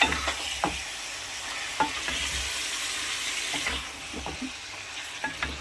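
Chicken pieces and onions sizzling in hot oil in a frying pan as they are stirred, with a spoon knocking and scraping against the pan every so often.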